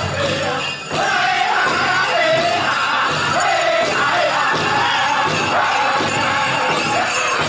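Powwow drum group singing a chicken dance song: high-pitched men's voices in unison over steady beats of the big drum, with a brief break just under a second in.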